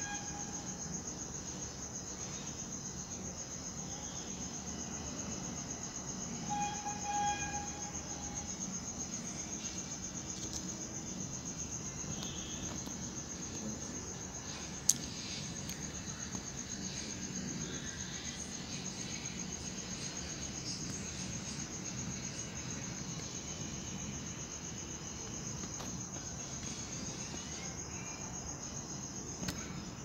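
Steady, unbroken high-pitched insect trilling. A brief pitched call sounds about six and a half seconds in, and a single sharp click about fifteen seconds in.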